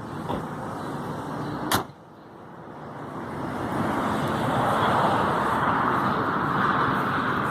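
A single knock just under two seconds in, then a steady rushing noise inside a car that builds over about two seconds and holds.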